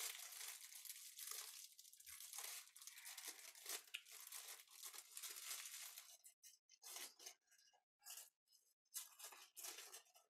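Small clear plastic bag of Lego pieces being crinkled and torn open by hand, faint. It rustles continuously for about the first six seconds, then breaks into short separate crinkles.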